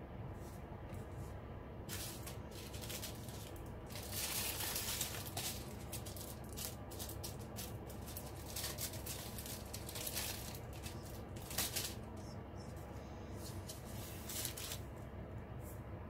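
Small plastic bags of square diamond-painting drills being handled and moved about, the plastic crinkling and the drills rattling inside, in several bursts.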